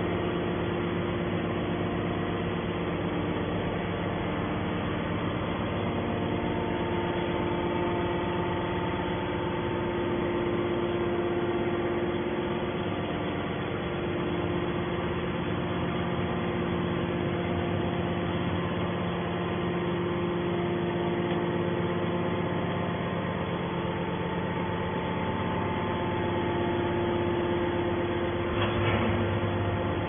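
Hydraulic power unit of a scrap-metal baler running steadily, its electric motor and pump giving several constant tones. A brief knock comes near the end.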